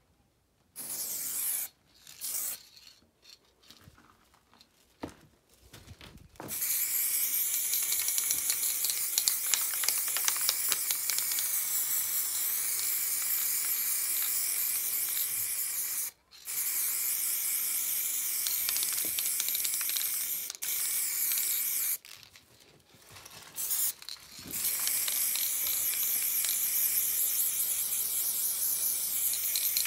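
Aerosol spray paint can hissing as it sprays onto a wall: a few short spurts at first, then long sprays broken by brief pauses.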